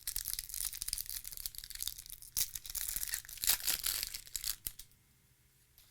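Foil wrapper of a baseball card pack being torn open and crinkled in the hands, a dense crackling rustle that stops about four and a half seconds in.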